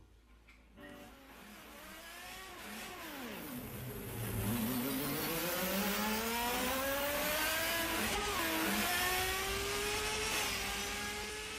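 Race car engine recording, building in loudness. Its pitch drops, then climbs steadily as it revs, with a brief dip about eight seconds in, before it fades near the end.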